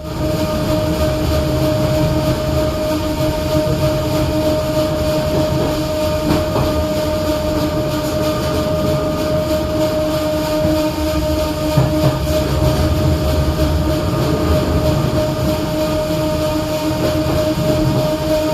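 Renfe class 442 narrow-gauge electric multiple unit running, heard on board: a steady rumble of the wheels on the rails under a constant high tone, with a couple of faint knocks.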